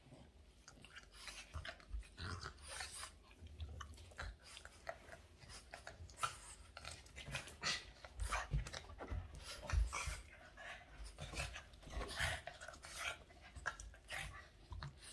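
A Boston terrier mouthing and play-biting a man's hand: irregular wet chewing, mouth clicks and snuffles, with paws and body scuffling and thumping on the couch.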